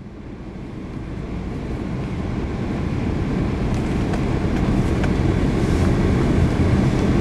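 Low, rough rumble of wind buffeting the microphone, fading in over the first couple of seconds and then holding steady.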